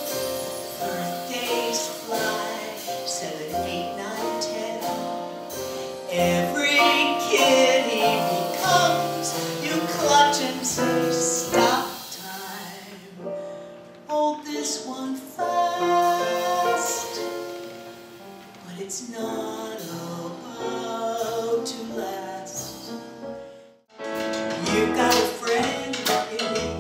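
A woman singing a song into a microphone with instrumental accompaniment. The music is broken by short edits about halfway and near the end.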